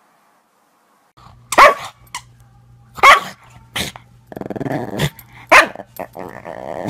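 Small dog barking sharply and growling while playing tug with a plush toy. The barks start about a second in, with rough growling between them.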